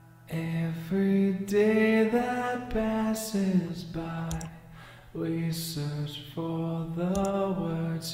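Soloed lead vocal track playing back from the DAW: sung phrases with short pauses between them, with no other instruments. It is the pass played through LUNA's Neve summing bus.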